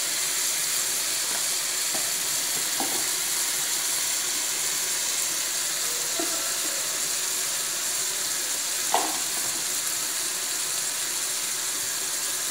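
Mushrooms, tomato and onion sizzling steadily in oil in a metal pan, with a few light taps of a spoon as spice powders are tipped in; the sharpest tap comes about nine seconds in.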